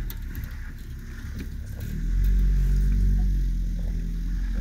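ATV engine running as the quad drives across soft bog. The engine note drops away for the first couple of seconds, with some scattered clatter, then settles back into a steady run.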